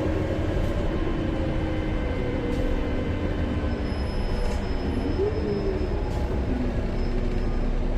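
2014 Gillig Low Floor CNG transit bus running, a steady low rumble with faint steady tones. A whine rises and falls briefly about five seconds in.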